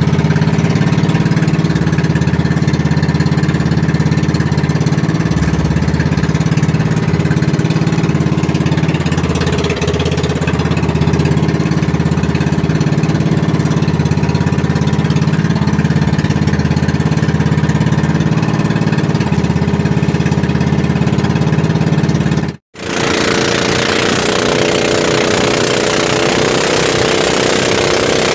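Small engine of a motorized outrigger boat (bangka) running steadily under way. After a brief cut near the end it runs on with a different pitch.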